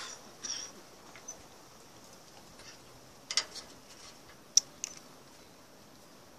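A few faint, short clicks and taps, as of small objects being handled, over a quiet background.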